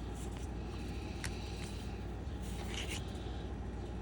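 Faint handling of trading cards: a light click and brief scrapes of card against card over a steady low room hum.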